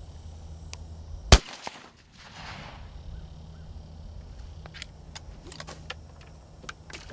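A single rifle shot about a second in, sharp and loud, followed later by a few faint clicks.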